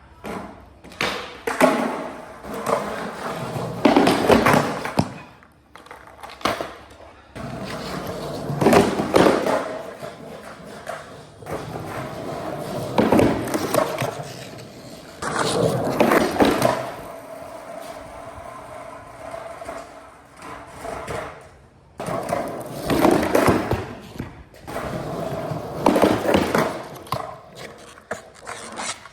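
Skateboard runs, one every few seconds: urethane wheels rolling and rumbling on hard ground, broken by sharp clacks and scrapes of the board and trucks against the ramp and its metal coping.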